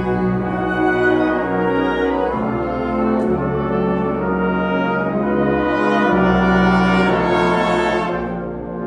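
School concert band of brass and woodwinds playing sustained chords, the brass to the fore. The chords change about two and a half and six seconds in, and the band softens near the end.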